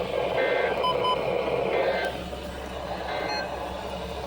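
Several short electronic beeps over a steady hiss: two quick beeps about a second in, with brief two-tone chirps before and after.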